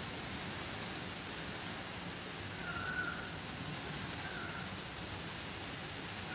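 Steady outdoor storm ambience: an even hiss with a thin high whine over it, and a few faint short chirps about three and four seconds in and at the end. No thunder is heard.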